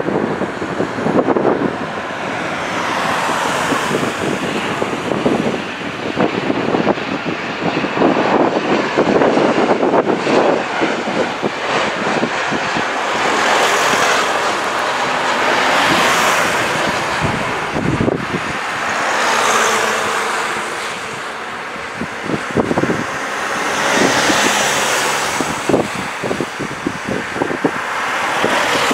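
Turbofan engines of an Embraer E-Jet airliner on landing approach: a jet rush that swells and fades as the aircraft passes low overhead and touches down. Heavy wind buffeting on the microphone crackles over it throughout.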